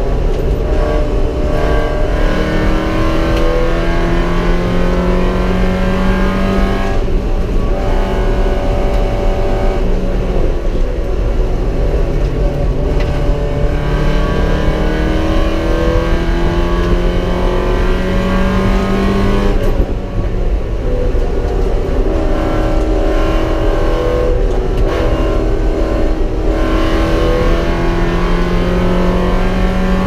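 Porsche 944 race car's inline-four engine at racing speed, heard from inside the cabin: the note climbs under acceleration and falls back sharply several times as the car is driven around the track.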